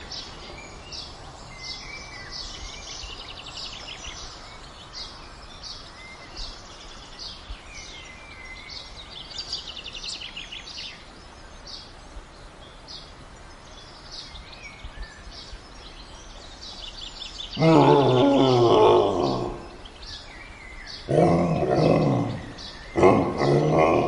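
Jungle-style nature ambience with bird chirps repeating throughout, then three loud, deep roars from a large animal in the last third, each a second or two long.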